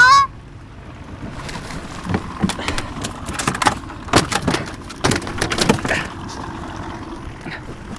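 Canada goose gives one short, loud honk at the very start, followed by a few seconds of irregular knocks, clatter and splashing around an aluminum jon boat.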